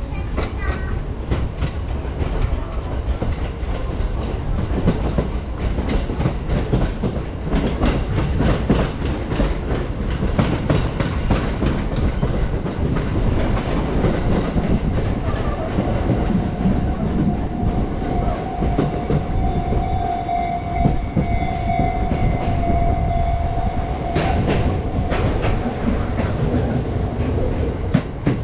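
Sotetsu electric commuter train running, heard from inside the car: a steady rumble with the clickety-clack of wheels over rail joints. A steady whine comes in just past the middle, holds for about eight seconds, then stops.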